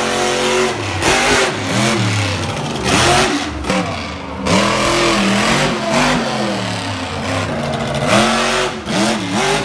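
Monster truck engine revving hard, rising and falling in pitch several times as the driver works the throttle, with loud rushing surges at each burst of power.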